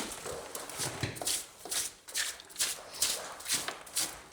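Quick, even scraping strokes, about two to three a second, as of clean-up on a building site.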